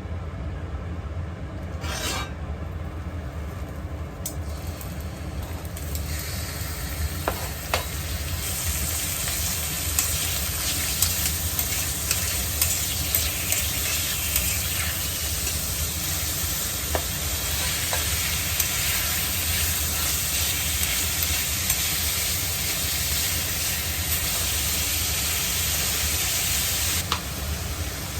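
Food sizzling in a frying pan, with scattered pops and crackles; the sizzle grows fuller a few seconds in and eases slightly near the end.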